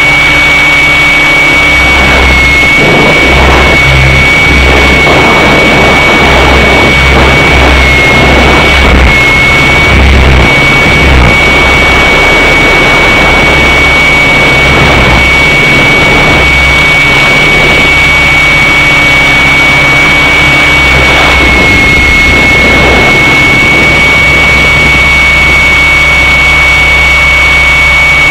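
Align T-Rex 600 radio-controlled helicopter in flight: a loud, steady high whine from its drive that sags slightly in pitch a few times, over a rush of rotor wash and wind.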